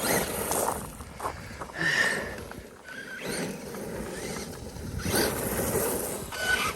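Traxxas E-Revo electric RC truck driven in several bursts of acceleration over gravel, its electric drive whirring and its tyres crunching and spraying gravel.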